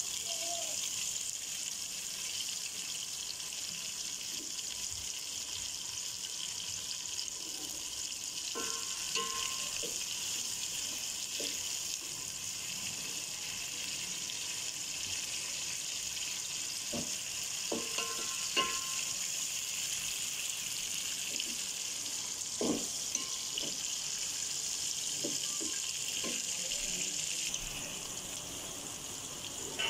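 Sliced onions sizzling in hot oil in an aluminium pot, a steady hiss, with a few sharp scrapes and taps of the spatula stirring them against the pot.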